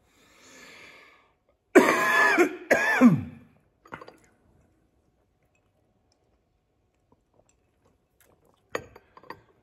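A man clearing his throat in two harsh, rasping pushes, with a few faint clicks near the end.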